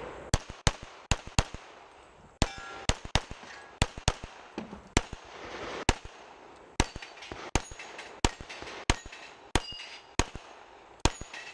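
A semi-automatic pistol firing in quick strings, about two dozen shots in all at roughly two to three a second, with a few short pauses between strings. Each shot is a sharp crack with a short echo.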